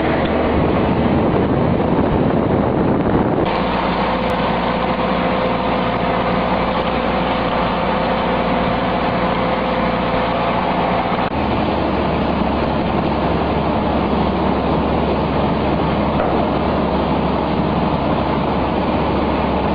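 Feed mixer wagon running steadily as it churns hay, a loud continuous mechanical drone. The sound shifts abruptly twice, about three and a half seconds in and again about eleven seconds in.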